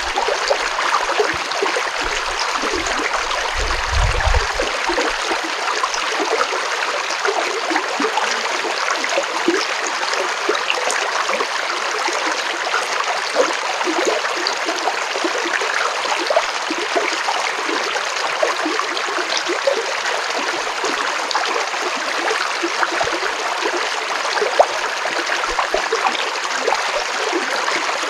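Mountain stream flowing steadily, a continuous rushing and splashing of water, with a brief low rumble in the first few seconds.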